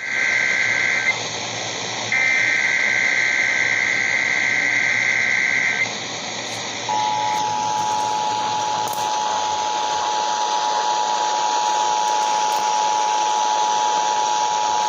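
Emergency Alert System header data bursts, a shrill electronic warble: a short burst, a gap of about a second, then a longer burst ending about six seconds in. About seven seconds in, the two-tone EAS attention signal starts and holds steadily, all over a steady broadcast hiss.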